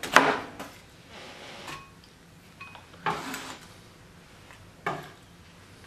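Chef's knife chopping onion on a plastic cutting board: one last chop at the start, then the blade scraping the diced onion across the board for about half a second around three seconds in, and a single short knock near the end.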